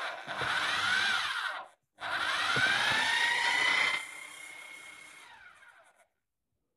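Hammer drill with a chuck adapter and twist bit spinning without load. A short run that speeds up and stops, then a second run whose whine rises and holds steady for about two seconds before the power is cut and the drill winds down over the next two seconds.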